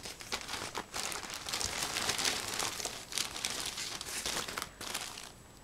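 Paper leaflets and packaged freebies rustling and crinkling as they are handled and shuffled, a dense run of small crackles that dies away about five seconds in.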